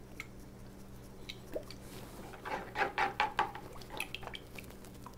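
Hot sauce squirted from a squeeze bottle into a plastic bowl of melted butter and mayonnaise: scattered drips and splats, with a denser run of louder squelching splashes a little past halfway.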